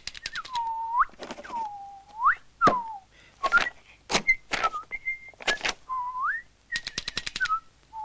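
Cartoon sound effects: a pure whistle that swoops down and back up in U-shaped glides, alternating with short bursts of rapid clicking and a thud about three seconds in.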